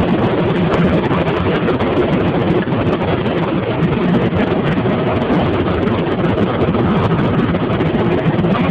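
Helicopter engine and rotor noise heard from inside the cabin: a loud, steady drone with no let-up.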